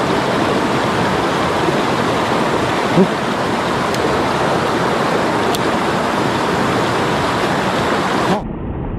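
Mountain stream rapids rushing steadily over boulders. Near the end the sound suddenly turns duller and loses its hiss.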